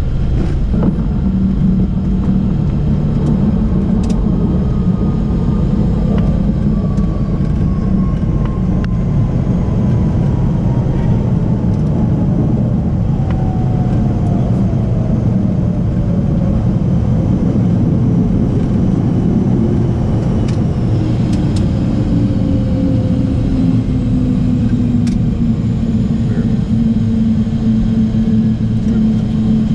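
Learjet 45XR heard from inside the cockpit on its landing rollout: a loud, steady rumble of the wheels and airframe on the runway, with a turbine whine from its Honeywell TFE731 turbofans falling slowly in pitch as the engines spool down and the jet slows.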